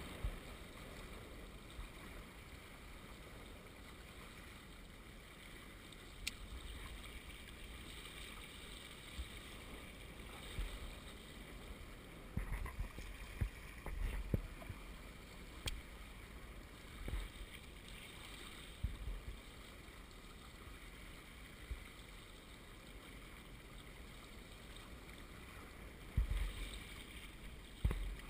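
Steady wash of water along the hulls of a Hobie Wave catamaran under sail, with scattered low thumps and a couple of sharp clicks.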